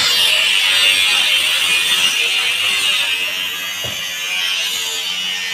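A small electric motor running steadily with a high-pitched whine.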